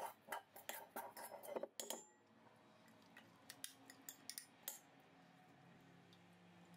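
Faint clinks and scrapes of a spoon against a glass bowl and a stainless steel mixing bowl as a wet spice paste is scraped in: a quick run of light taps in the first two seconds, then a few scattered ones.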